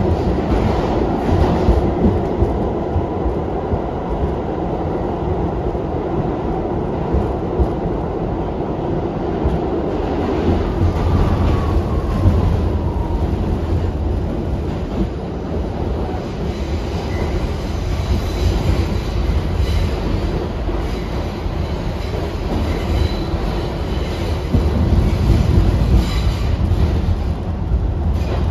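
An R62A subway train running along the track, heard from on board: a steady running noise with wheels clicking over the rail joints. A faint falling whine comes in about eleven seconds in.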